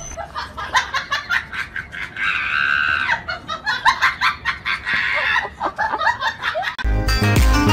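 Rapid, high-pitched human laughter with a sustained shriek partway through; music with a deep beat cuts in near the end.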